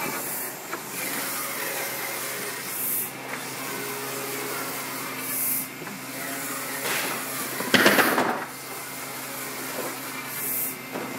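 Wide-format inkjet printer running as it prints a vinyl banner: a steady machine hum and fan noise, with a hissing swish that comes back about every two and a half seconds and a louder rushing burst about eight seconds in.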